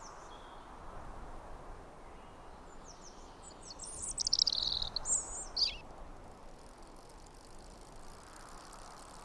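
Birds chirping over a steady outdoor background hiss, with a louder run of high, quickly falling chirps about four to six seconds in.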